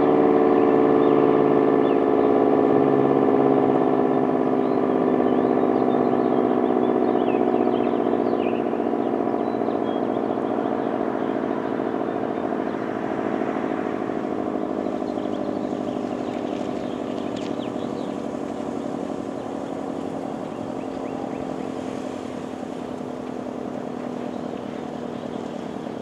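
Renfro SD10 electromechanical warning siren winding down: its wail slowly drops in pitch and fades as the rotor coasts to a stop.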